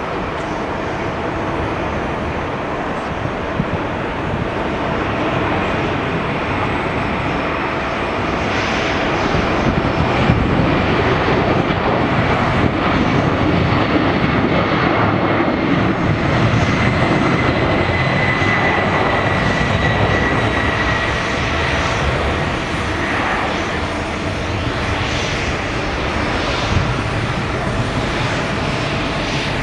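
Boeing 767-300's twin jet engines at takeoff thrust through the takeoff roll and climb-out: a steady loud roar. A high whine rises out of it about halfway through and sinks slightly in pitch as the jet passes.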